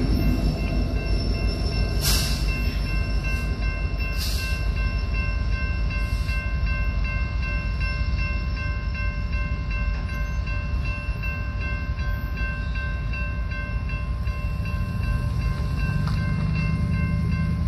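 Railroad crossing bell ringing steadily while a departing coal train rumbles away. Two sharp metallic clanks come about two seconds apart early on, and the low rumble grows again near the end.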